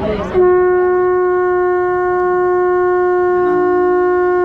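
A blown wind instrument holding one steady note that starts abruptly just after the start. A second, lower held note joins about three seconds in.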